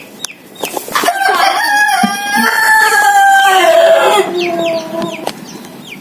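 A rooster crows once, one long crow of about four seconds starting about a second in. Ducklings peep at the start and end, a run of short, high, falling cheeps about three a second.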